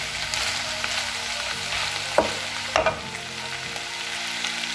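Chips, carrot strips and chicken drumsticks sizzling in a non-stick frying pan while a wooden spatula stirs them through, with two louder scrapes of the spatula in the pan a little past two seconds in.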